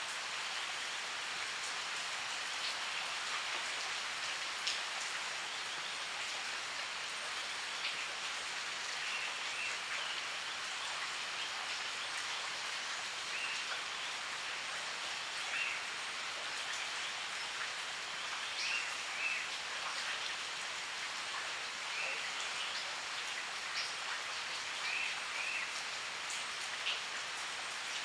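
Steady rain falling on leaves, with occasional sharp drip ticks. From about nine seconds in, a bird gives a short double chirp every few seconds.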